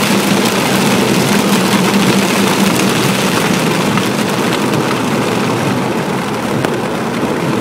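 A car being driven in heavy rain, heard from inside: a steady hiss of rain and wet road, with a low engine hum that weakens after about three seconds.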